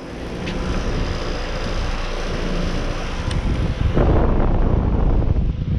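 2009 American Standard Heritage 15 heat pump outdoor unit running in cooling mode: a scroll compressor and an ECM-driven condenser fan give a steady low rumble and a rush of air. Air buffets the microphone, heaviest from about four seconds in.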